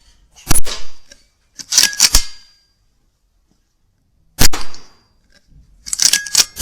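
Weihrauch HW100 .22 pre-charged pneumatic air rifle firing twice, a sharp crack about half a second in and another past four seconds, each followed about a second and a half later by a quick run of metallic clacks as the side lever is worked to load the next pellet.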